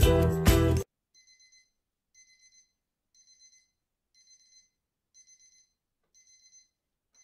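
Outro music that cuts off abruptly under a second in, followed by faint electronic beeping that repeats about once a second, about six times, like an alarm clock.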